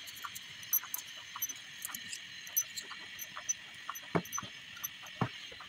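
A steady high-pitched insect drone with scattered light clicks, and two louder knocks about a second apart near the end.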